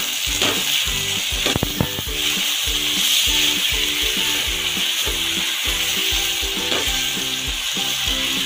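Chopped onions and sliced tomatoes sizzling in hot oil in a kadai as they are stirred with a spatula: a steady frying hiss, with a few light clicks of the spatula a second and a half in.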